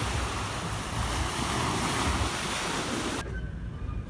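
Sea surf washing on the shore with wind buffeting the microphone, a steady rushing noise that cuts off abruptly about three seconds in, leaving a much quieter background.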